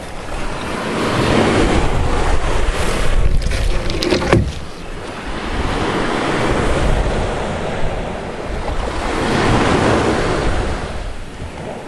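Ocean surf breaking and washing ashore in slow, repeated swells, with wind buffeting the microphone. A short knock sounds about four seconds in.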